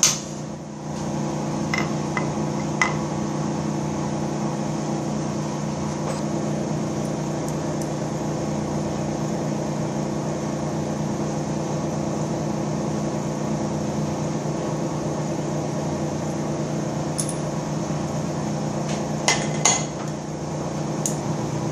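Steady electric machinery hum made of several low tones, with a few light metallic clinks of hand tools on steel two to three seconds in and again near the end.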